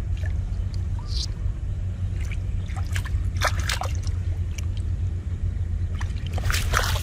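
Water sloshing and splashing in short bursts, several around the middle and again near the end, over a steady low rumble.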